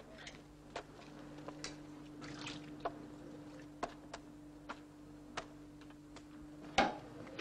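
Scattered short, sharp clicks about once or twice a second over a steady low hum, with a brief hiss a couple of seconds in and a louder knock near the end.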